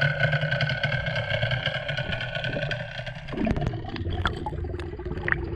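A motorboat's outboard engine running steadily, heard underwater as an even, whining hum. About three seconds in the camera breaks the surface and the sound turns to water splashing and sloshing around the microphone.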